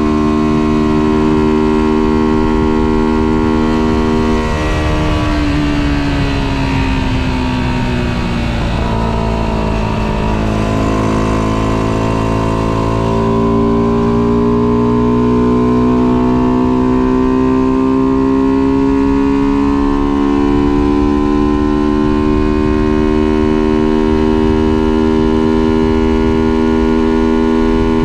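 Tuned 125cc motorbike engine with reworked intake and exhaust, heard from the rider's seat under way. The steady engine note falls as the throttle is eased off about four seconds in, then climbs again from about thirteen seconds as the bike accelerates and settles into a steady cruise. Wind and road rush sit underneath.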